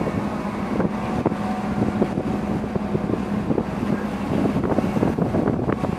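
Wind buffeting the microphone over the rush of sea water along a moving cargo ship's hull, with a steady low hum from the ship underneath.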